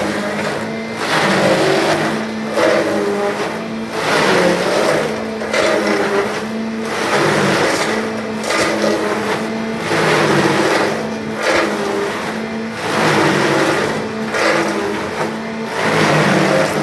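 Four-blade grinding machine running under test, a steady mechanical hum whose level and pitch swell and dip about every second or so.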